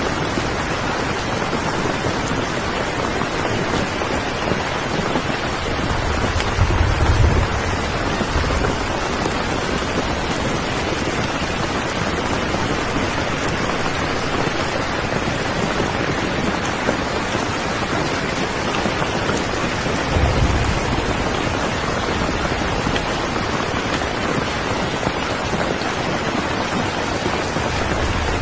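Steady rain, with two low rumbles of thunder: one about a quarter of the way in and a shorter one about two-thirds through.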